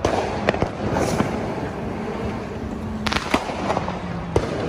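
Neighbourhood fireworks and firecrackers going off: irregular sharp bangs and pops, with a quick cluster of cracks about three seconds in. A steady low hum runs underneath.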